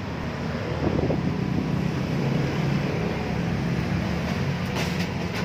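Rilon Cut 40 inverter plasma cutter switched on and idling: its cooling fan runs with a steady whir and a low hum.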